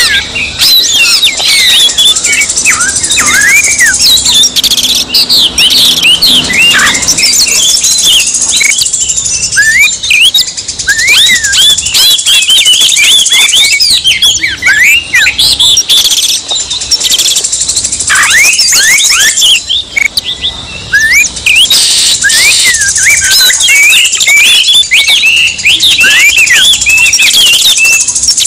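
Oriental magpie-robin (kacer) singing loudly: a dense, fast stream of varied whistles, chirps and trills that rise and fall, with a few short lulls. This is the fired-up, aggressive ('emosi') kacer song played as a lure to provoke a captive kacer into singing back.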